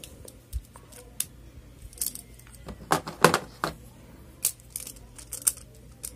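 Small plastic Beyblade parts being handled and pressed together: a series of sharp plastic clicks and light knocks, the loudest few coming in quick succession about three seconds in.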